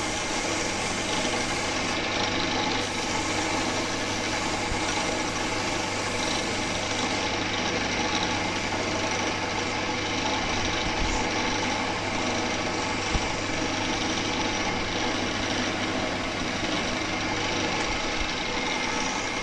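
A power tool running steadily without a break.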